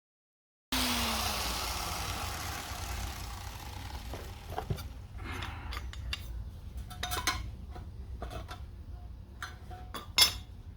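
Angle grinder winding down after cutting the exhaust pipe, its whine falling and fading over a few seconds. Then scattered metallic clinks and knocks as the steel exhaust pipe is worked into the header collector, with one loud knock near the end.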